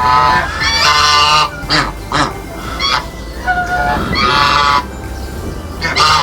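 Geese honking: a flock giving loud, repeated nasal calls, several overlapping.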